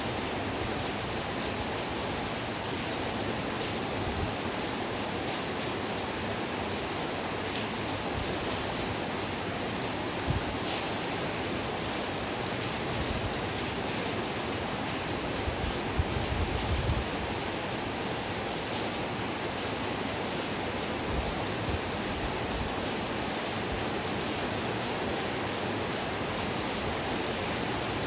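Heavy rain falling steadily, an even hiss of water without a break. A few dull low thumps stand out about ten seconds in and again around sixteen to seventeen seconds.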